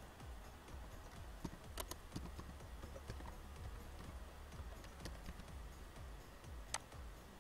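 Computer keyboard keystrokes and mouse clicks: a few sharp clicks among fainter, irregular key taps, over a low hum.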